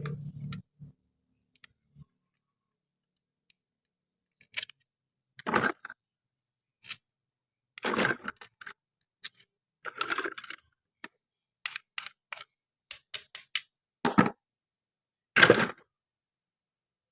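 Toy kitchen pieces clicking and knocking as they are handled, in irregular separate strokes, with a few longer, rougher sounds among them; the loudest comes near the end.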